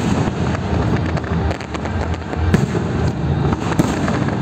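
Fireworks display: aerial shells bursting overhead in quick succession, a continuous low rumble of booms broken by many sharp bangs and crackles.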